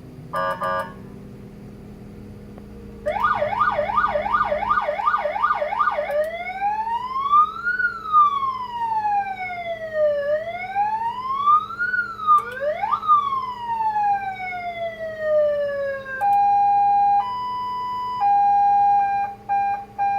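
Electronic car siren through a high-power siren speaker, stepping through its tone modes: a short beep, then fast yelp sweeps about three a second, a slow rising and falling wail, long falling sweeps, and a two-tone high-low alternation near the end. A steady low hum runs beneath it.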